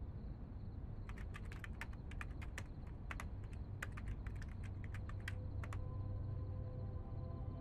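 Typing on a computer keyboard: a run of irregular keystrokes for about five seconds over a steady low hum. Soft sustained music tones come in near the end.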